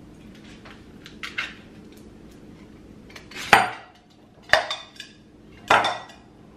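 Tuna can, its lid and a fork clinking and scraping against a glass bowl as canned tuna is drained and emptied out: a few sharp clinks and scrapes, the loudest about three and a half seconds in.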